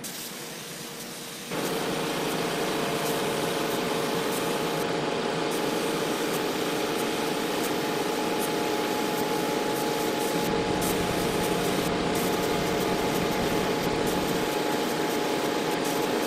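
Gravity-feed paint spray gun hissing steadily as compressed air atomises paint, starting suddenly about a second and a half in, over a steady low hum.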